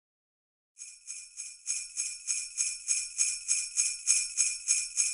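Sleigh bells shaken in a steady rhythm, about three shakes a second, starting abruptly about a second in.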